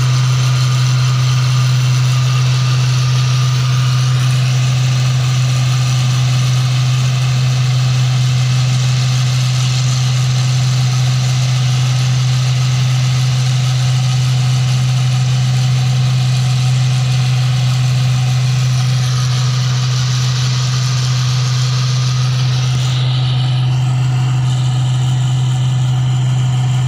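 New Holland combine harvester running steadily as it cuts rice: a constant low engine drone, with the higher machine noise above it thinning out near the end.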